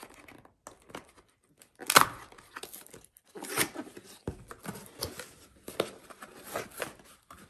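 Cardboard product box being opened by hand: flaps and paperboard inserts pulled open, scraping and rustling in irregular bursts, the sharpest about two seconds in.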